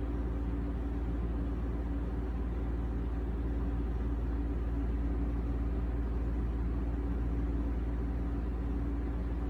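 Steady low background hum with a faint steady tone in it.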